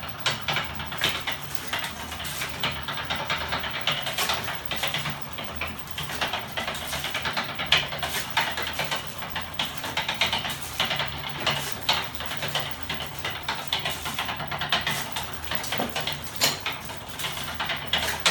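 Homemade battery-and-electric-motor magnet-engine rig running, its swinging aluminium arms and linkages making rapid, continuous metallic clicking and clattering over a low hum.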